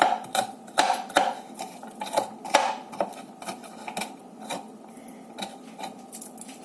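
A knife chopping garlic into small pieces: irregular sharp taps, about two or three a second, louder in the first three seconds and softer after.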